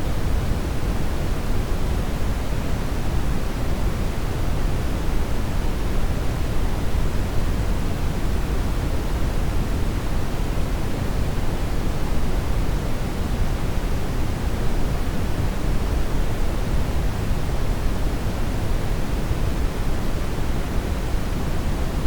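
Steady, unchanging generated noise: a continuous even rush, heaviest in the bass and thinning toward the treble.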